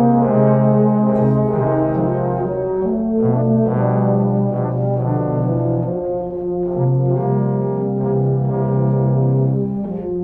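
Brass band playing slow, sustained chords, with euphoniums, trombones and tubas holding long low notes that change every second or two.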